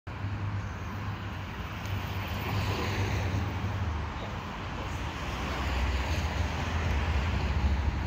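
Outdoor street ambience: steady traffic noise with wind rumbling on the microphone, swelling slightly a couple of times.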